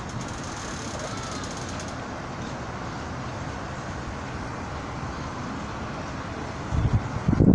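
Steady outdoor background noise, an even hiss and rumble with no distinct events. Louder, uneven rumbling starts near the end.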